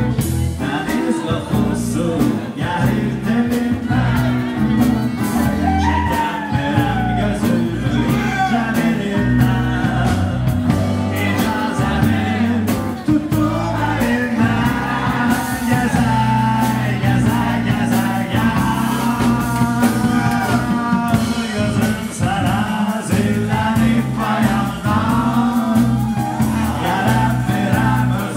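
A singer and a jazz trio performing a song live, the vocal melody carried over a steady low accompaniment and regular percussion strokes.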